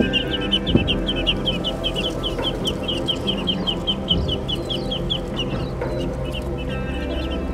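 Muscovy ducklings peeping, a rapid run of short high peeps about four a second that pauses about six seconds in and resumes near the end, over background music.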